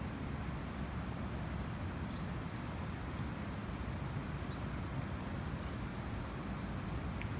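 An insect, cricket-like, trilling steadily at one high pitch over a steady low rumble, with a single sharp click near the end.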